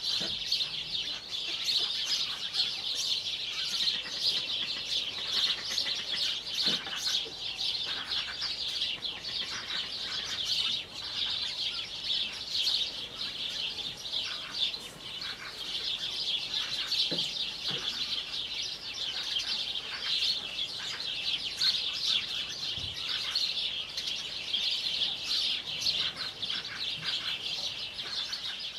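A dense chorus of small birds chirping without a break, with a few soft low clucks from a chicken about a quarter of the way in and again past the middle.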